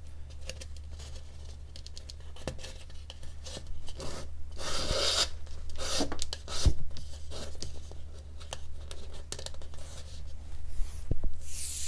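Leather lace being drawn through a hole in a dried gourd's rim with a lacing needle: dry rubbing and scratching with small clicks. There are two longer swishes as the lace is pulled through, about five seconds in and near the end.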